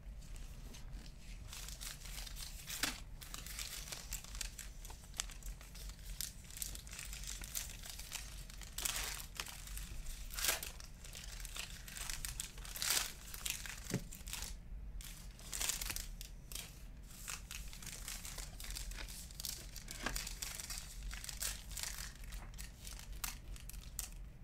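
Trading-card pack wrappers and packaging crinkling and tearing in many short, irregular bursts, as cards are unwrapped and handled.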